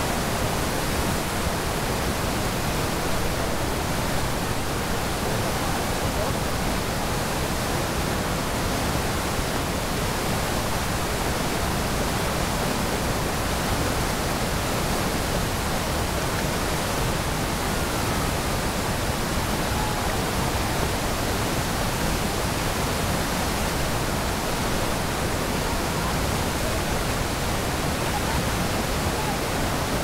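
Water pouring over the partly frozen Keila Waterfall, a steady, even rush with no change in level. Faint voices come through now and then.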